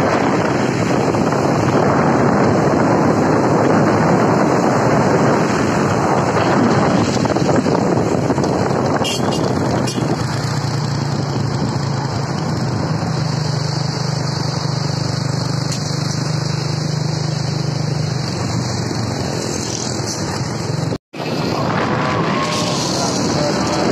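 Wind buffeting the microphone and road and engine noise from a vehicle moving along the road, with a low steady hum in the middle stretch. The sound cuts out for an instant shortly before the end.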